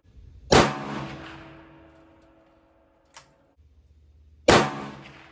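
Two rifle shots about four seconds apart from a Ruger American Gen II bolt-action rifle firing 62-grain steel-core 5.56 rounds, each a sharp crack with an echo that dies away over a second or so. A short faint click comes between them.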